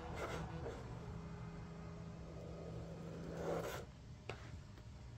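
Ballpoint pens scratching and rubbing on paper. About three and a half seconds in there is a louder rubbing swell, and a short click follows.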